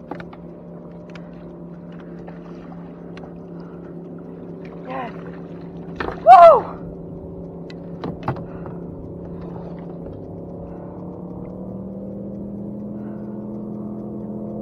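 A steady low motor hum that rises slightly in pitch near the end. About six seconds in comes a short, loud cry, with a fainter one just before it and a couple of sharp clicks soon after.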